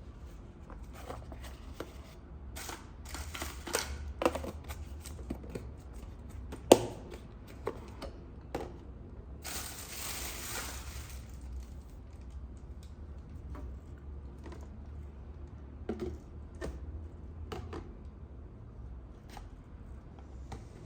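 Capsicums and plastic storage boxes being handled: scattered clicks and knocks of plastic, a sharp knock about a third of the way in, and a rustle of a plastic bag for a couple of seconds about halfway, over a low steady hum.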